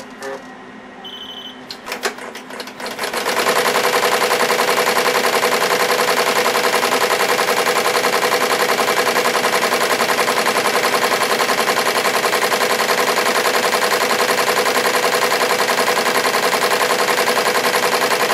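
SWF multi-needle embroidery machine stitching lettering on a baseball cap held in a cap frame. After a quieter start with a short high beep and a few clicks, the machine runs up about three seconds in and stitches at a steady, rapid rhythm.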